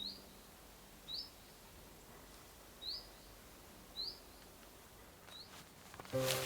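A bird repeating a short, high, rising chirp five times, about once a second, over a faint steady hiss. Music and a rush of noise come in near the end.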